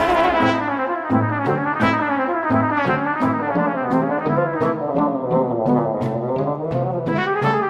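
Background music led by brass, with a walking bass line and a steady beat.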